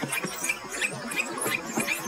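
Bat echolocation calls made audible by slowing them down: a rapid, irregular series of short chirps and clicks, about four a second, with quick sweeps in pitch.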